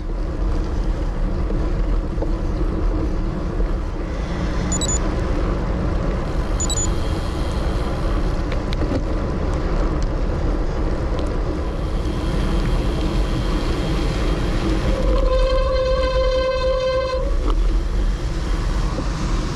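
Steady rush of wind and wet road noise on a road bike's camera while riding through heavy rain. About two-thirds of the way in, a steady pitched tone sounds for about two seconds.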